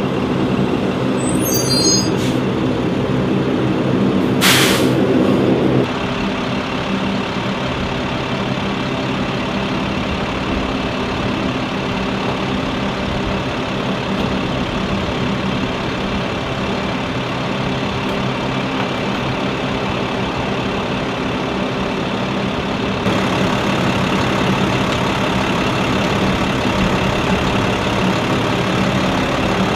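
Diesel fuel truck's engine running steadily, with one short sharp air-brake hiss about four seconds in.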